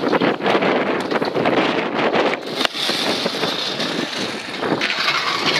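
Stunt scooter wheels rolling on asphalt, with wind on the microphone and scattered clicks and knocks from the deck and bars. A sharper knock comes about two and a half seconds in.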